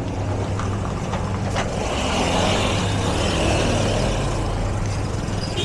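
Street traffic: a motor vehicle's engine running close by with a steady low hum, and a hiss that swells and fades in the middle.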